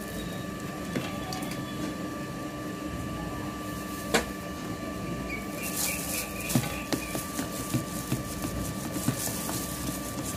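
Plastic spatula stirring and scraping thick semolina halwa in a plastic bowl, with small scratchy ticks in the second half. A sharp click about four seconds in, over a steady background hum.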